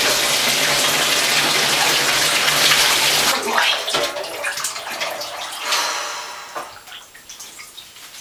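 Bathtub tap running hard into the tub with a steady low pipe hum, cut off abruptly about three seconds in. After that, softer splashing and dripping as the wet dog is washed by hand.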